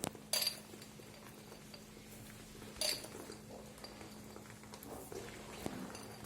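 Metal spoon clinking against a dish as tablespoons of sugar are spooned into a custard mixture: two short ringing clinks, about half a second in and near three seconds, over a faint steady hum.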